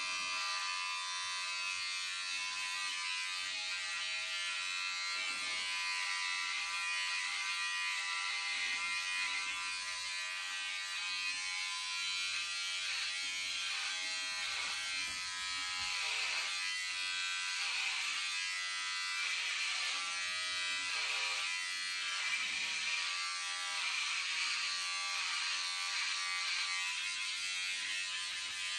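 Cordless electric hair clippers buzzing steadily as they are run through a man's hair, with small irregular changes in the buzz as the blades work through it.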